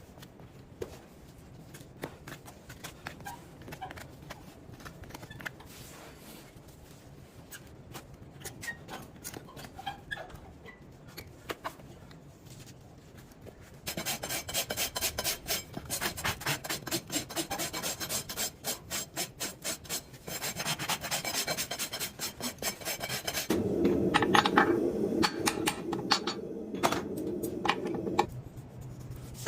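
Hoof rasp filing a horse's hoof in rapid back-and-forth strokes: light scraping at first, then loud, steady rasping from about halfway in.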